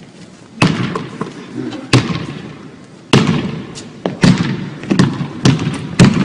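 Basketball bouncing on a hardwood gym floor, sharp thuds that echo in the big hall: three spaced bounces, then quicker dribbling in the second half.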